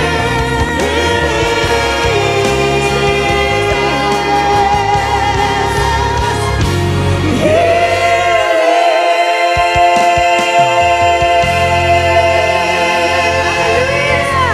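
Gospel choir singing a worship song over band accompaniment. In the second half the voices hold a long sustained note while the bass briefly drops out.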